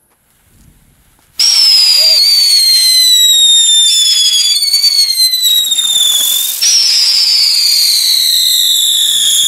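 Three Funke Tornado Wirbel whistling ground spinners going off together, a loud howl of overlapping whistles that starts suddenly about a second and a half in. Each whistle slides down in pitch, and a fresh one starts high again about six and a half seconds in.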